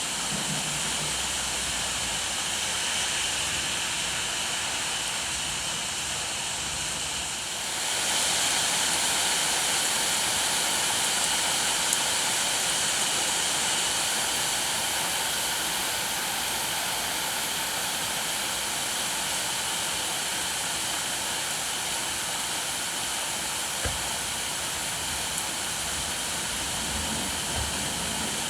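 Steady rainfall, a dense even hiss that grows louder about a quarter of the way in.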